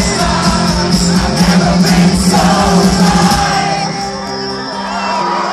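Rock band playing live through a concert PA, heard from within the crowd: sustained electric guitar over a steady, driving kick drum, with audience members yelling. The drums drop out a little past halfway, leaving ringing guitar and crowd shouts.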